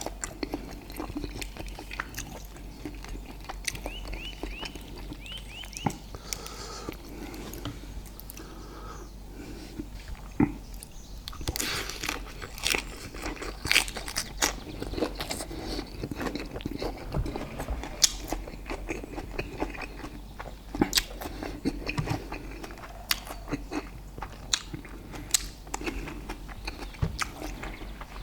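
Close-up chewing and biting: wet mouth sounds, lip smacks and clicks of someone eating soft grilled steak with sticky rice. A few quick high chirps come in briefly about four to six seconds in.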